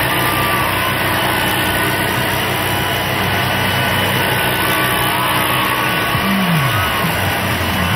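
Steady loud rushing blast of a hand-held streamer cannon shooting a continuous stream of ribbon streamers, over a low, even engine drone, with one falling glide in pitch about six seconds in.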